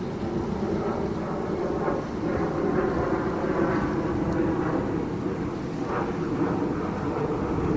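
Steady low rumble of a large cruise ship's engines and machinery under way.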